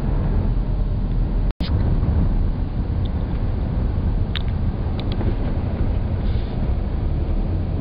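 Wind buffeting the camera microphone: a loud, steady low rumble that cuts out for an instant about a second and a half in, with a few faint clicks later on.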